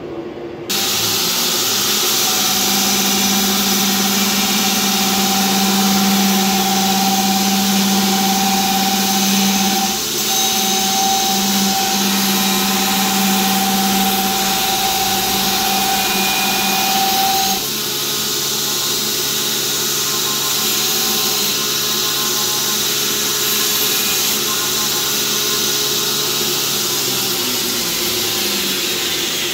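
Belt grinder running with a steady, loud whine while the edge of a forged steel axe head is ground on the belt; the note of the grinding shifts lower partway through.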